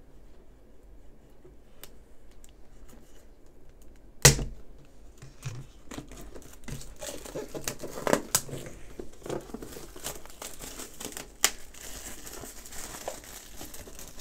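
A cardboard retail box being opened by hand: faint clicks, a single sharp knock about four seconds in, then crinkling and tearing as the box's seal tape is cut with a folding knife and peeled away, with scattered sharper snaps.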